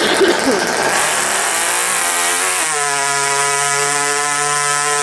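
RC micro pulling tractor's motor running at full power while it drags the brake sled. It starts rough and noisy, climbs in pitch from about a second and a half in, then holds one steady, high whine.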